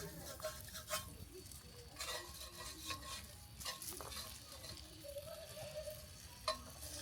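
Sausages frying quietly over gas, with scattered clicks and scrapes of a cooking utensil.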